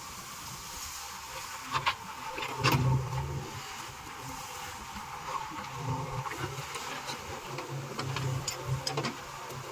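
JCB 3DX backhoe loader's diesel engine running, swelling under load as the backhoe arm lifts, swings and digs, with a few sharp knocks.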